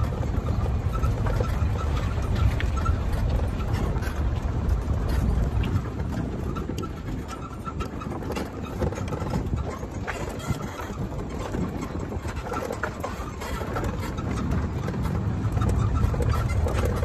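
Golf cart driving along: a steady low rumble from the running cart and wind on the microphone, easing off for several seconds in the middle.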